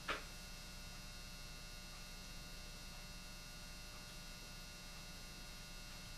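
Steady low electrical mains hum, with one short click just after the start.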